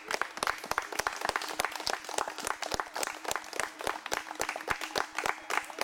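A group of people applauding, many overlapping hand claps at an irregular, quick pace.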